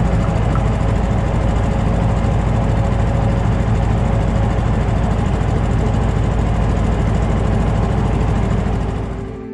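Small fishing boat's motor running steadily while the boat is under way, fading briefly near the end before cutting off.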